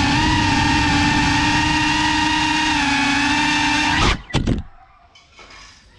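The electric motors and propellers of a GEPRC Cinelog35 cinewhoop FPV drone whine steadily in flight, heard from the camera on board. About four seconds in they stop abruptly, with a few short knocks as the drone lands.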